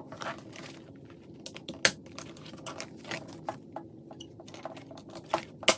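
Clear PVC photocard binder sleeves being handled and fitted onto a ring binder: irregular plastic crinkling and small clicks, with a sharper click about two seconds in and another near the end.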